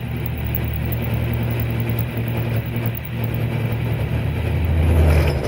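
Milling machine running while an end mill cuts a slot in 3/8-inch plate steel: a steady machine hum with the noise of the cut over it, growing a little louder near the end. The operator says the machine is vibrating during the cut.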